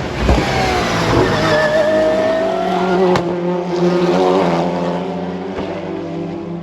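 Race car engine accelerating hard, its pitch rising over the first few seconds. A single sharp crack comes a little past three seconds in, then a shorter rise, and the engine sound slowly fades.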